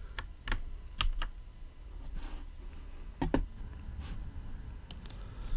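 A handful of separate keystrokes on a computer keyboard, spaced irregularly, as a commented-out line of code is edited.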